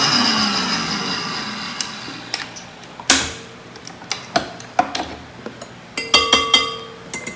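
A Breville stand mixer's motor winding down after being switched off, its pitch falling as it fades over about two seconds. About three seconds in comes a sharp click, then a run of clinks as the metal balloon whisk knocks against the glass bowl while it is taken off, a few of them ringing briefly near the end.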